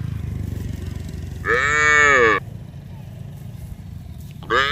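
Cow mooing: one call about a second and a half in that rises and falls in pitch, and a second moo starting near the end, over a steady low rumble.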